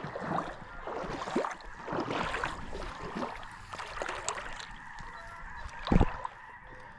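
Geese honking repeatedly, with one sharp knock about six seconds in.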